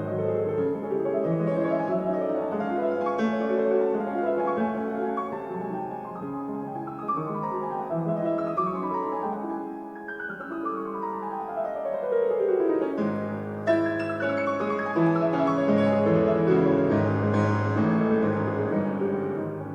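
Piano music played through Yamaha NS-1000MM loudspeakers, with a low bass line and several fast descending runs about halfway through.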